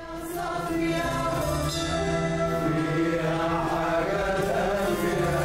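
Male voices singing long held notes together, chant-like, with a small Arabic music ensemble of oud and keyboards.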